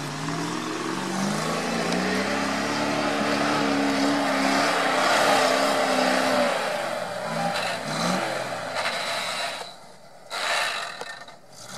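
GAZ-66 army truck's V8 petrol engine revving hard as it tries to drift on snow. The pitch rises over the first second or so and holds high for several seconds, then eases off with a couple of shorter blips and drops away near the end.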